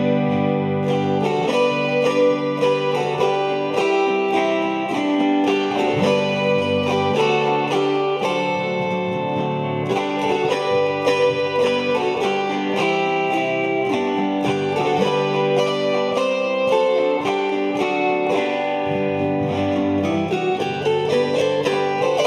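An ensemble of four chromaharps playing a hymn: strummed chords and plucked melody notes ringing on over one another at an even volume.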